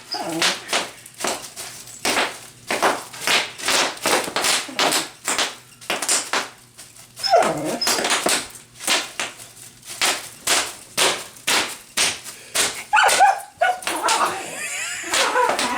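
A dog barking again and again, about two barks a second, with growling and whining in between as it goes at a sheet of bubble wrap.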